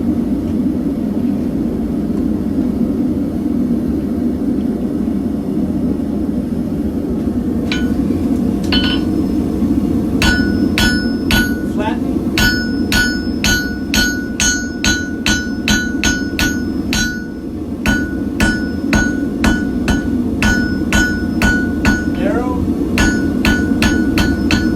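Hand hammer striking hot steel on an anvil, each blow ringing, as a hook-tool blank is drawn out and flattened thinner. A couple of first blows are followed, about ten seconds in, by a steady run of about two strikes a second with one short break. Under it all, a gas forge's burner runs steadily.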